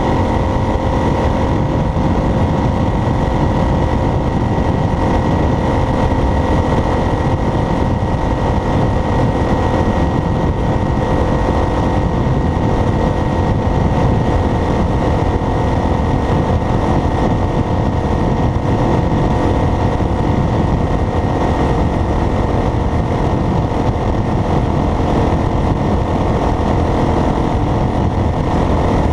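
Road and engine noise of a vehicle driving at a steady speed: a continuous low rumble with a few faint, even tones held over it.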